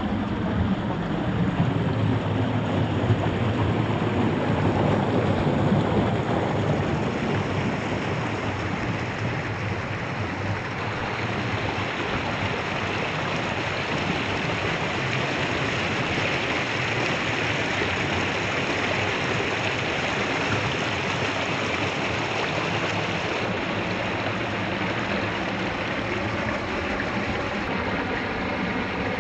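Steady rush of a small rocky creek, water running over stones, with faint steady tones joining in near the end.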